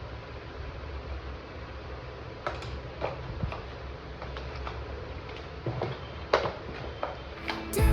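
A handful of scattered clicks and taps from a wireless keyboard and its packaging being handled, over a steady low hum.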